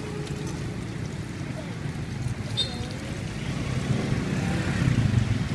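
Street background: a low rumble of passing motorbike traffic that swells near the end, with faint voices and one brief high clink about two and a half seconds in.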